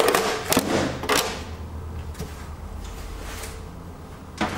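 Plastic back case of an LCD monitor being lifted off and set aside: a few knocks and clatters in the first second or so, then a quieter stretch and one more knock near the end.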